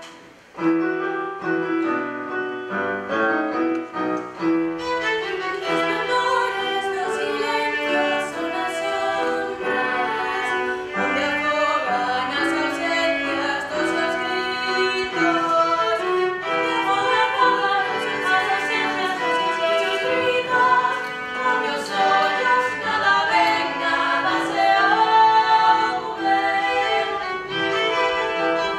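A classical-style song sung over violin and cello accompaniment, starting after a brief dip about half a second in.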